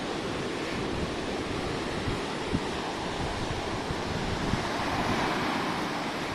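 Ocean surf washing steadily onto the beach, swelling a little about five seconds in, with some wind on the microphone.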